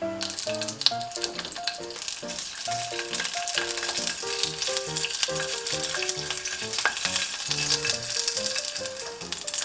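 Small sausages sizzling and crackling in a hot frying pan over a gas burner as they are turned with tongs. Soft background music plays along.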